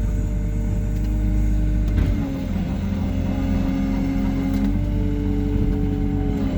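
Hyundai R140W-7 wheeled excavator working: its diesel engine runs with a steady low rumble under a hydraulic whine that shifts in pitch about two seconds in and again near five seconds.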